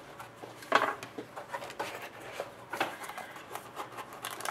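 Cardboard box being handled and opened: a few short scrapes and rustles of stiff cardboard sliding against cardboard as the inner box comes out of its sleeve.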